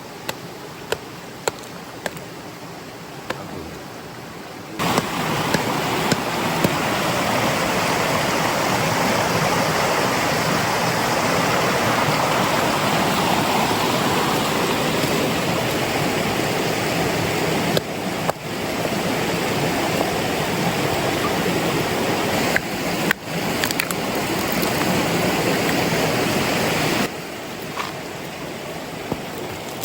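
Rushing water of a stream or small waterfall, a loud steady noise that cuts in suddenly about five seconds in and drops back to a quieter hiss near the end. The quieter stretches carry scattered sharp clicks.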